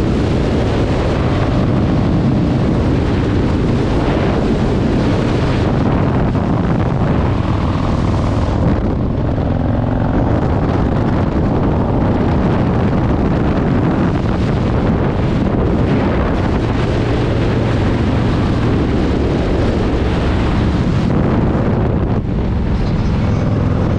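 Motorcycle engines running steadily at highway speed, buried under heavy wind rushing over the microphone.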